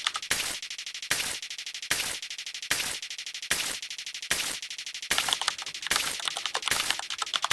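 A looping sound effect: fast rattling clicks broken by a sharp, loud crack about every 0.8 seconds, in an even repeating pattern.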